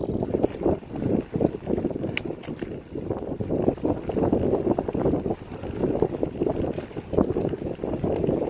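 Wind buffeting the microphone of a moving recumbent cycle: a gusty, uneven rumble with a single sharp click about two seconds in.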